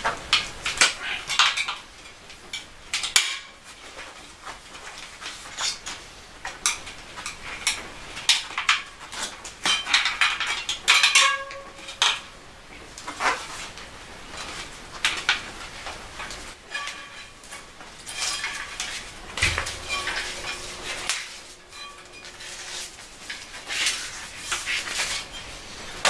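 Plastic tyre levers clicking and scraping against a Campagnolo clincher rim as a road-bike tyre is levered off, with the tyre bead rubbing over the rim edge. The clicks and scrapes come in an irregular run.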